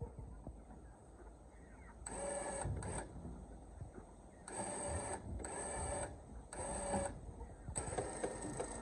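Electric Warn winch on an ATV log-trailer crane, hauling a load on a rope. It runs in six short bursts, each a steady whine of about a second or less.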